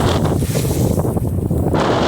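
Strong wind buffeting the camera microphone during a downhill ski run in a blizzard: a loud, steady rumble and hiss. The upper hiss drops away for about a second in the middle.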